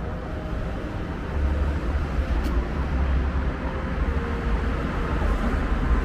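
Steady low rumble of city street traffic, swelling louder about a second and a half in.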